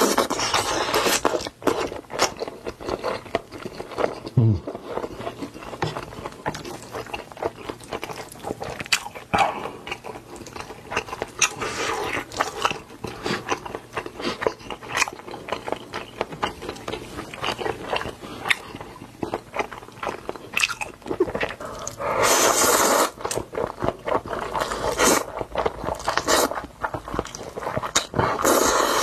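Close-miked eating sounds of a person chewing and biting food, with crunchy bites and many small wet mouth clicks. Twice in the last third there are longer noisy bursts of about a second each.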